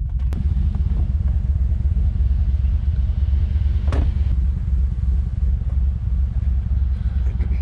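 Low, steady rumble of an old pickup truck's engine left idling, with a single sharp click just after the start.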